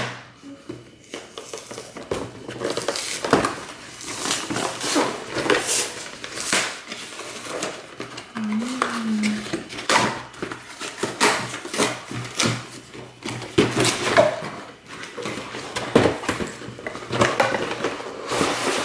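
Cardboard box and clear plastic insert of a Pokémon card collection box being handled and pulled open: irregular rustles, scrapes and clicks throughout.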